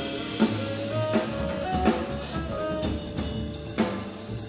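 Jazz band playing live: drum kit strikes over a bass line, with a tenor saxophone holding a melody of sustained notes that step from pitch to pitch.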